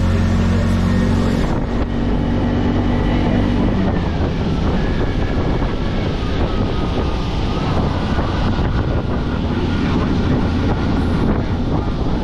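Auto-rickshaw (bajaj) riding on a wet road, heard from inside the open cab: its small engine running with a steady low hum for the first few seconds, under a continuous rush of wind and tyre noise.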